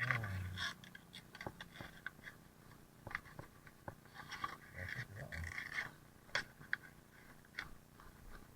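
Irregular small clicks and scrapes of a locksmith's tools working at a door lock, with brief low murmurs near the start and about five seconds in.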